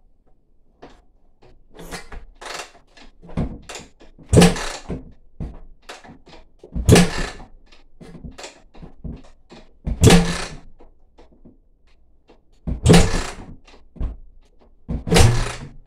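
Suzuki RM-Z four-stroke motocross bike being kick-started over and over, a hard kick about every two to three seconds with smaller clatters between: the kick-start lever stroking and the engine turning over without firing. These are the engine's first start attempts after fresh valves.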